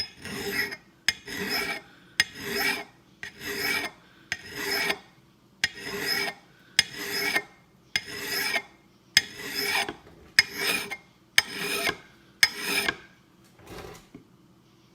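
Hand file rasping across an axe bit's steel edge in steady strokes, about one a second, each starting with a sharp click as the file bites; a micro bevel is being filed onto the edge. The strokes stop near the end.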